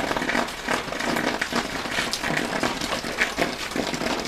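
Oil poured onto a lump of glowing charcoal in a small steel bowl, sizzling with irregular crackles and pops as it burns off into smoke for smoking the chicken.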